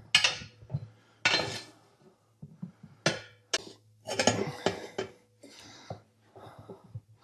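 Steel tire iron clinking and scraping against the steel rim of a small riding-mower wheel as the tire bead is levered over it: a string of sharp metallic clinks with gaps between, the loudest near the start and around a second in.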